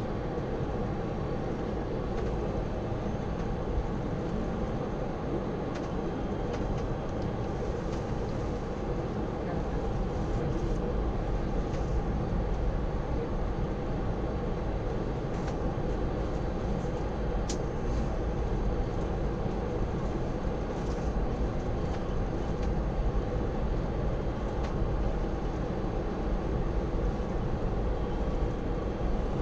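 Cabin noise inside a Boeing 747-400 taxiing after landing: a steady low rumble from the idling engines and the rolling airframe, with a few faint clicks.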